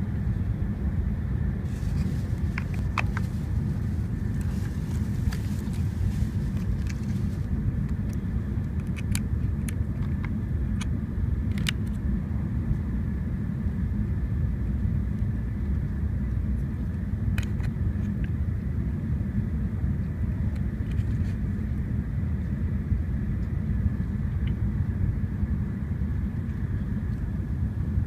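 Steady low rumble of a moving vehicle's cabin, with a faint steady whine, like riding a Shinkansen train. A scattering of light clicks and rustles from the bento box and its packaging being handled, mostly in the first half and once more past the middle.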